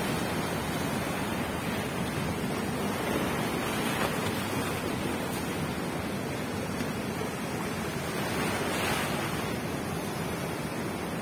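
Ocean surf breaking and washing up over sand and rocks at the shoreline, a steady rush of water that swells a little now and then.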